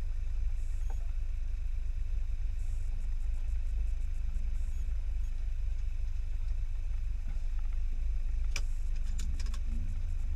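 Maruti Suzuki Gypsy 4x4 engine idling with a steady low rumble, heard from inside the cabin. A few sharp clicks come near the end.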